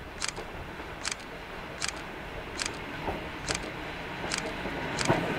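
Electric locomotive-hauled passenger train approaching, its low rumble growing louder, with a sharp high-pitched click about every 0.8 s that comes faster near the end.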